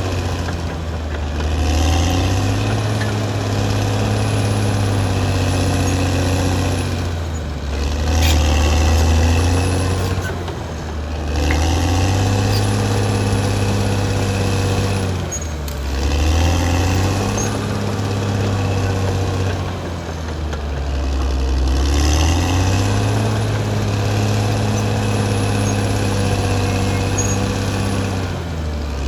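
Caterpillar D6R XL bulldozer's diesel engine running hard, its pitch dropping and climbing again every few seconds as the load changes.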